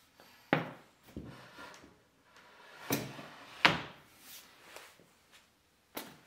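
Wooden frame with metal cross-bars knocking and scraping against a workbench as it is swung and folded into place: several separate knocks with softer rubbing between them, the loudest a little past halfway.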